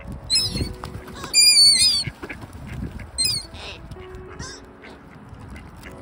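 Gulls calling with high, wavering squeals several times, the loudest and longest about a second and a half in.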